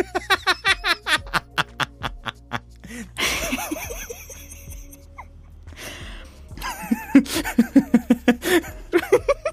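Dubbed-in human laughter over background music: a fast run of repeated 'ha-ha' pulses in the first three seconds, a breathy pause, then a second laughing fit starting about two-thirds of the way through.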